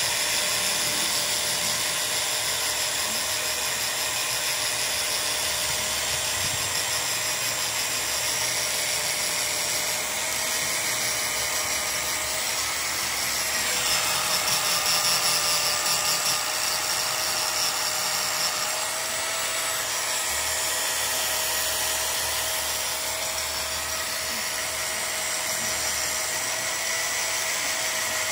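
Small high-speed electric power tool running steadily with a continuous whine; its pitch shifts slightly about halfway through.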